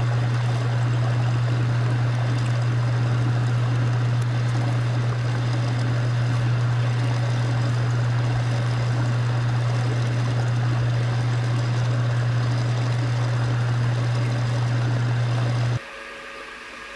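Metal lathe running while a twist drill bores into a block of square keystock turning in the chuck: a steady low hum with a rough cutting noise over it. It cuts off suddenly near the end, leaving a much quieter shop background.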